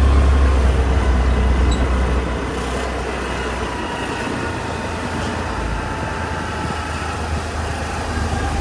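Motor scooter riding along a street: engine and road noise with a heavy low rumble that eases about two seconds in, and a thin whine that slowly falls in pitch.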